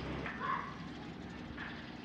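Outdoor background noise: a steady low rumble, with a short higher-pitched sound about half a second in.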